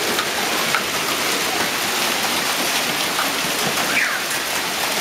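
Hailstorm: hailstones falling and pelting the pavement and roofs, a steady, dense patter with many small ticks.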